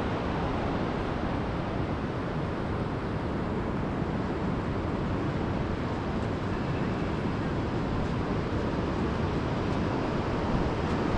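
Steady wash of ocean surf with wind on the microphone, an even rushing noise with no breaks.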